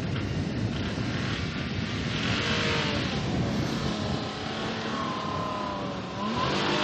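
Off-road vehicle's engine revving hard under load on a sand dune run, its pitch climbing and dipping over a constant rush of noise.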